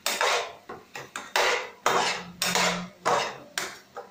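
A metal spoon scraping and clattering against a metal kadai while stirring chopped vegetables, in repeated strokes about two or three a second, each starting sharply and fading quickly. This is the vegetables being mixed after rock salt is added.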